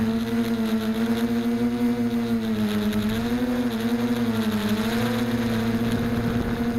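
Mini foam tricopter's electric motors and propellers humming steadily in flight, close to the onboard camera. The pitch wavers and dips a few times about halfway through.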